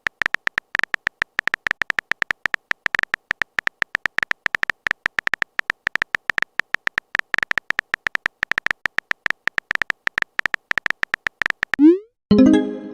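Phone keyboard typing sound effect: a fast, irregular run of short high beeping clicks, all at one pitch, like keys being tapped on a touchscreen. Near the end it stops, a quick rising swoosh sounds, and a short chime follows.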